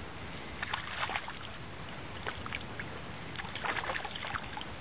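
Hooked brown trout splashing and thrashing at the surface in two bouts, about a second in and again near the end, over steady wind and water noise.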